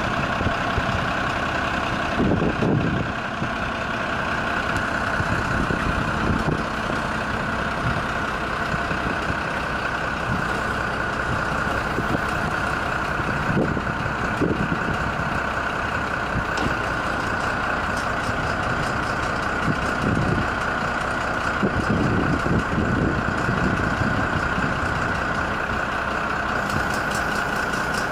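Iveco Eurocargo 135E23 truck's diesel engine running steadily to power the hydraulics of its truck-mounted aerial work platform as the boom and basket move, with a steady high whine over the engine and a few brief low swells.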